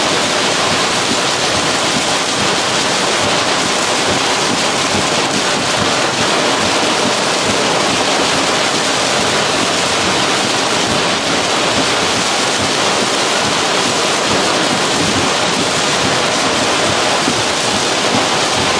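Heavy rain pouring down on a car's roof and windows, a loud, steady rush.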